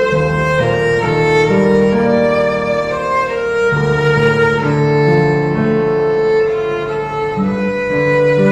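Background music: slow, sustained melody led by a bowed string instrument such as a violin, over held lower notes.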